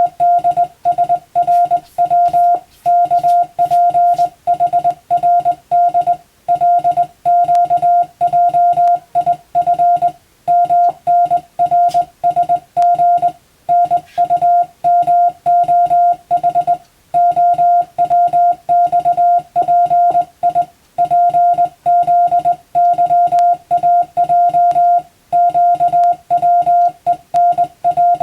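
Morse code sent as a single steady tone, keyed rapidly on and off into dots and dashes, with short gaps between letters and longer breaks between words.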